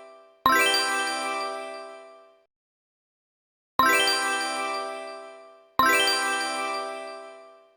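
A bright, bell-like ding sound effect struck three times, each strike ringing with many overtones and fading away over about two seconds. There is a silent gap of about a second after the first strike, and the last two strikes come about two seconds apart.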